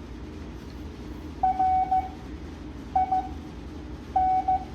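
Morse code (CW) practice tones sent at 7.5 words a minute: a single steady-pitched beep keyed on and off, with three characters of dots and dashes spaced well apart, the first starting about a second and a half in.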